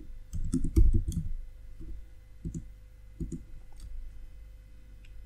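Computer keyboard being typed on: a quick run of keystrokes in the first second, then a few scattered key presses.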